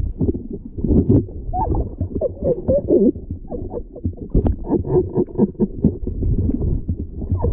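Muffled underwater sound picked up by an action camera in its waterproof housing: low-pitched bubbling and water movement with short gurgling glides and frequent irregular knocks.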